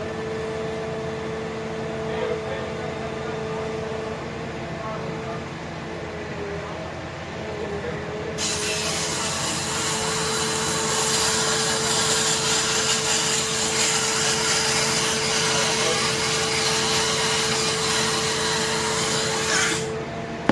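Motorized tree-removal equipment running steadily with a constant whine. About eight seconds in a loud hiss joins it, typical of a saw or chipper working into wood, and it cuts off suddenly near the end.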